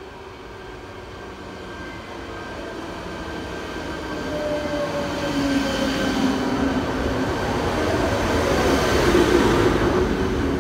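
ČD class 471 CityElefant double-deck electric unit arriving and braking into a platform, its rumble growing steadily louder as it draws alongside. Whining tones from the drive fall in pitch as it slows, with a light wheel squeal.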